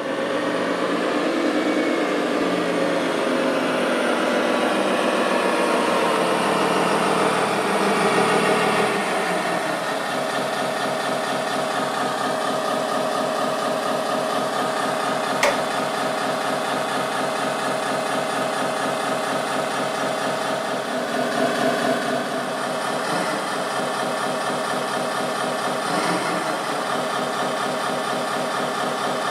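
Engine sound of a radio-controlled Komatsu wheel loader, a simulated diesel from its sound module. It is fuller and shifting over the first nine seconds as the loader drives up, then settles to steady running. There is one sharp click about halfway through.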